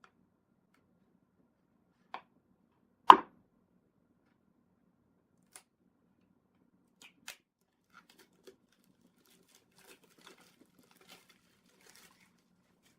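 Retail packaging being handled and opened by hand: a sharp knock about three seconds in, the loudest sound, with a lighter one just before it, then scattered small clicks, taps and scratches as the box's tape is worked at.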